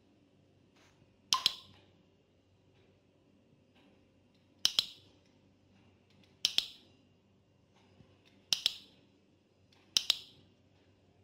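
A smartphone flashlight app's on/off switch clicking five times at uneven intervals, each a sharp double click as the phone's light is toggled.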